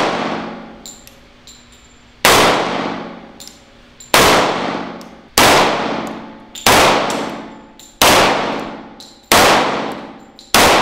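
FK BRNO PSD pistol firing 10mm rounds through its conversion barrel in slow aimed fire: seven shots about one and a half seconds apart, each ringing off in the range's echo. Small ticks sound between the shots.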